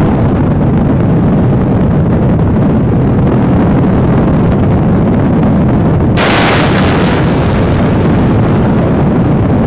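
Steady heavy rumble of wind on the microphone. About six seconds in, a missile fires from a deck-edge box launcher on the carrier: a sudden loud rushing blast from the rocket motor that fades over a second or two.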